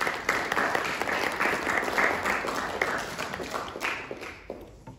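Audience applauding, a dense patter of many hands clapping that fades and dies away about four seconds in.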